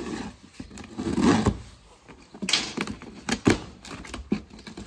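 Packing tape being slit and peeled off a cardboard box: scraping and ripping of tape, with sharp knocks and rustles from handling the cardboard. The longest rip comes about two and a half seconds in.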